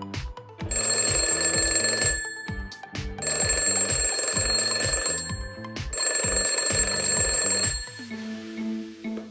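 Electronic alarm-like buzzing from a battery-powered toy, sounding three times for about one and a half to two seconds each, over background music with a steady beat.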